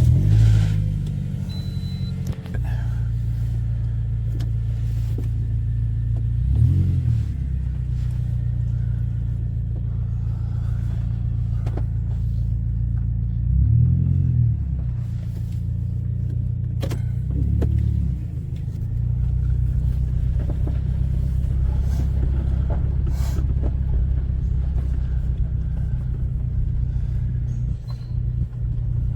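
Pontiac Vibe's 1.8-litre four-cylinder 2ZR-FE engine starting and running steadily. Its pitch rises and falls briefly about 7, 14 and 17 seconds in as the car is pulled forward.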